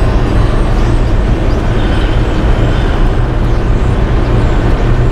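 Boat engine's low, steady rumble.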